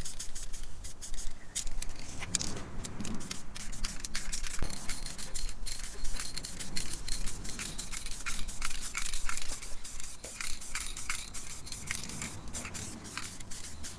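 Aerosol spray paint can spraying in many short, repeated bursts of hiss, with clicks.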